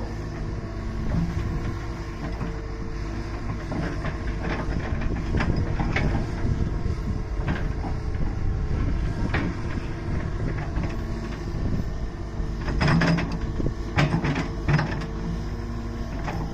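Hydraulic excavator running steadily at working speed, with scattered knocks and clanks of the bucket and arm as it works soil, and a cluster of louder clunks near the end.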